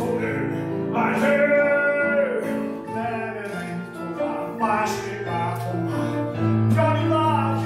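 A musical-theatre song: a voice singing long held and gliding notes over instrumental accompaniment, with a sustained low note underneath in the second half.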